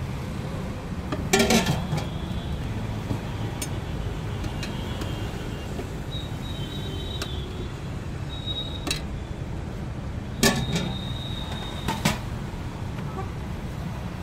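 A metal ladle clatters against a large aluminium curry pot as curry is served: a cluster of clinks about a second and a half in and two more sharp knocks near the end. Behind it runs a steady low rumble of road traffic.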